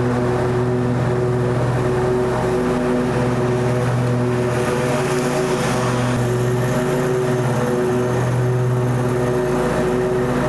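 Ferris ride-on mower's engine running steadily at mowing speed with the blades engaged, cutting grass with freshly fitted sharp blades; a constant hum that holds its pitch.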